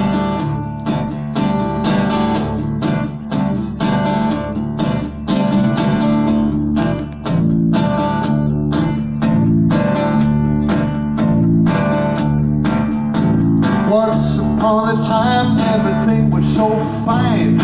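Instrumental intro of a country-style song: an acoustic guitar strums a steady rhythm over a five-string fretless electric bass.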